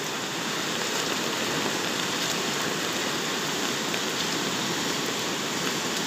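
Muddy floodwater of a river in spate rushing steadily over rocks, the river still rising.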